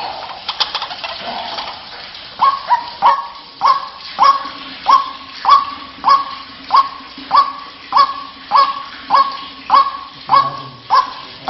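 White-breasted waterhen (ruak-ruak) calling: a steady run of short, honking calls repeated under two times a second, starting a couple of seconds in after a few scattered notes.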